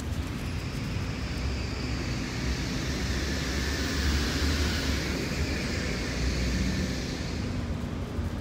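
A passing vehicle or aircraft: a broad engine and rushing noise that swells to a peak about midway and then fades away, over a low rumble of wind on the microphone.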